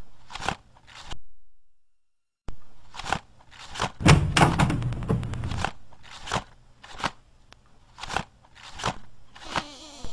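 A run of sharp knocks and clicks, roughly one every half second to a second, with a denser, louder clatter about four to six seconds in.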